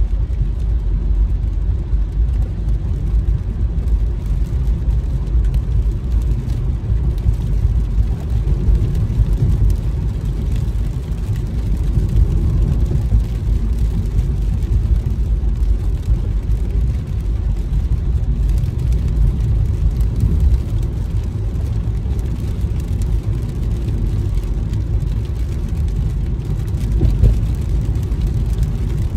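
Steady low rumble of a car driving on a wet freeway, heard from inside the cabin: tyre and road noise with the engine underneath.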